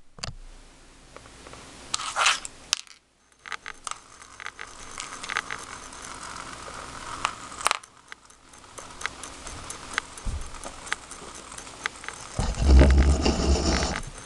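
Homemade spinning tops made of metal spacer washers on ballpoint-pen barrels spinning and wobbling on a vinyl-tile floor, the washer rims scraping with many small irregular clicks and rattles. A louder low rumble comes near the end.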